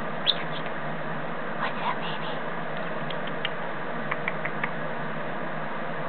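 Senegal parrot giving short, soft chirps and squeaks in scattered bursts, with a few brief clicks, over a steady hiss.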